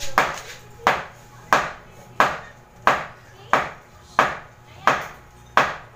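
Steady hammering: nine even strikes, about two-thirds of a second apart, each with a short ring.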